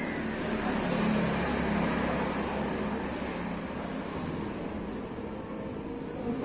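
Motor-vehicle engine and traffic noise, swelling about a second in and easing off over the next few seconds.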